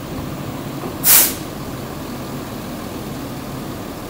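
Recycling truck's diesel engine idling steadily, with one short, loud burst of compressed-air hiss from the truck's air system about a second in.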